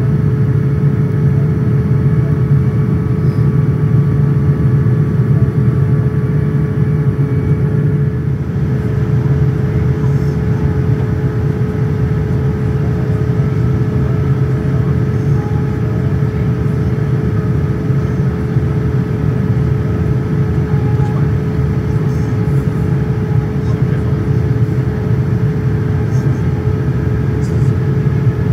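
Steady airliner cabin noise inside a Boeing 787-10: an even low rumble of engines and airflow with a constant mid-pitched hum above it.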